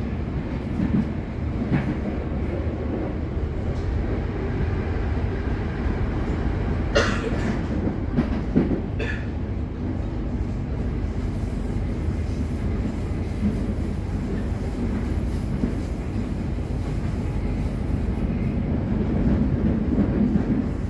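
Electric suburban train running on the line, heard from inside the carriage: a steady rumble of wheels on track, with a few sharp clicks a little past the middle.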